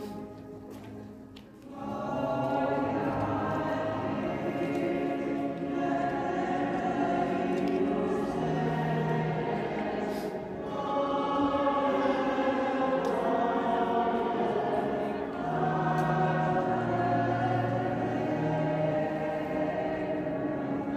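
Choir singing long, held phrases, with short breaks between phrases every four to five seconds.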